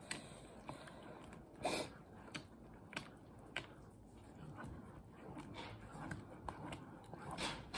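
Faint, scattered light knocks and clinks of kitchen utensils and cookware being handled, a few separate strikes with quiet between them.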